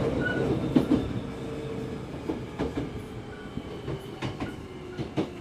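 Hankyu 5300 series electric commuter train heard from inside the car, slowing for a station stop: wheels click over rail joints, and the running noise fades while its hum sinks in pitch.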